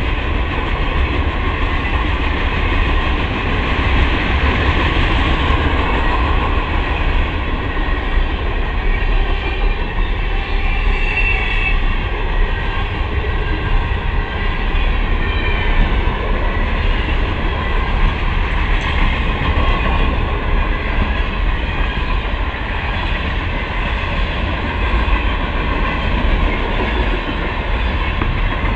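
Norfolk Southern mixed freight train's cars (boxcars, covered hoppers, a tank car and centerbeam flatcars) rolling past close by: a steady, loud rumble of steel wheels on the rails.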